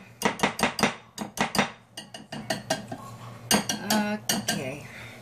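Wire whisk beating thick brownie batter in a glass bowl, the wires clinking against the glass in quick strokes, about five a second at first, then sparser.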